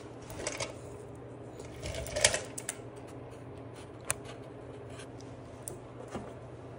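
Scattered sharp clicks and light rattles of small metal parts being handled at a mower's drive axle and pinion gear, loudest in a short cluster a little over two seconds in, over a steady low hum.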